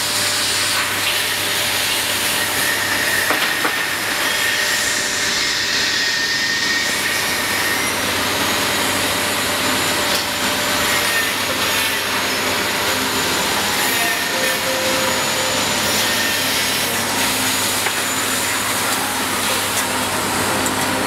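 Bonnell spring assembly machine running, a steady, dense mechanical noise with a few faint thin whines and light clicks over it.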